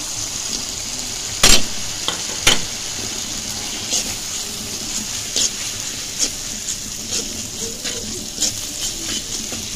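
Onion and spice paste sizzling in hot oil in a pan as it is fried down, stirred and scraped with a metal spatula. Two sharp clanks of the spatula on the pan come about a second and a half in and a second later, with lighter taps after.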